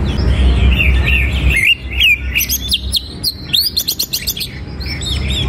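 Cucak ijo (greater green leafbird) singing a varied, warbling song. About a second and a half in it breaks into a fast run of sharp, high notes for about three seconds, then settles back to warbling.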